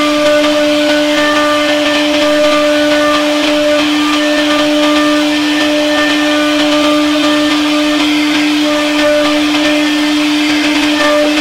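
CNC router spindle running at a constant steady whine while its bit carves relief grooves into a wooden door panel, with an even hiss from the cut over it.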